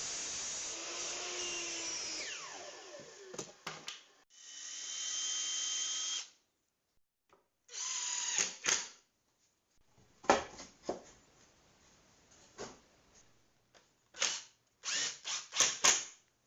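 A power tool runs steadily, then winds down about two and a half seconds in. It is followed by a few clicks, a second run of about two seconds with a steady whine, a short burst, and a string of sharp knocks near the end, broken by abrupt silent gaps.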